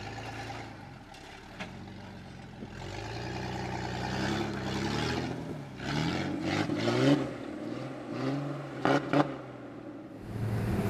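Jeep TJ engine revving up and down under load as it crawls up a rock ledge, with a few knocks from the tires and body on the rock.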